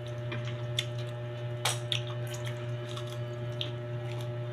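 Crisp raw leaves being torn apart and chewed: scattered short crackles and clicks, the sharpest about halfway through, over a steady low hum.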